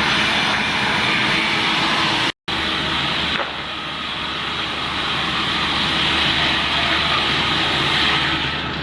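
Four-blade log sliding table saw (multi-rip gang saw) running, a loud steady machine noise with a low hum under it. It breaks off for a moment about two seconds in, and gets slightly quieter and duller about a second later.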